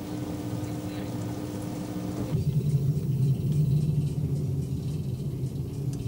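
A steady hum, then from about two seconds in a low, steady rumble of an inclined-railway passenger car running down its steep tunnel into a slate mine.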